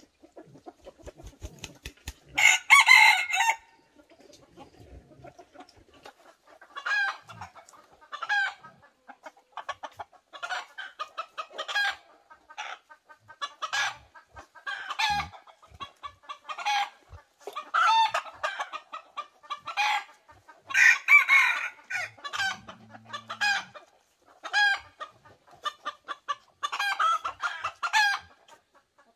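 Chickens clucking over and over, short calls about once a second, with two louder, longer calls: one about three seconds in and one about two-thirds of the way through.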